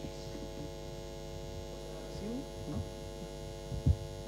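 Steady electrical mains hum from the hall's microphone and sound system, many even tones held together without change. A low thump sounds near the end.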